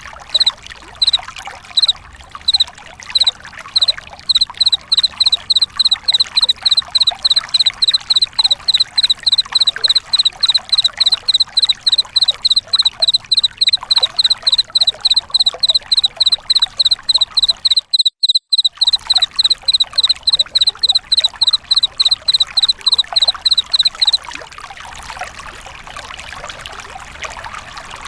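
Chirping insect of the cricket kind: a long run of short, clear, high chirps at about three a second over a steady trickle of running water. The chirping cuts out briefly about two-thirds through, then stops near the end, leaving only the water.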